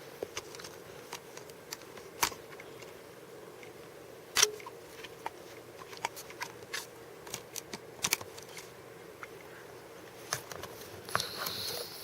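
Scattered sharp clicks and taps of small hard plastic being handled close to the microphone, irregular and uneven in strength, the loudest about four seconds in and again about eight seconds in. A faint steady hum runs underneath.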